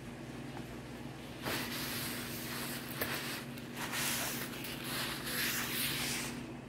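Rustling and handling noise of things being moved about on a kitchen counter close to the microphone, starting about a second and a half in, over a steady low electrical hum.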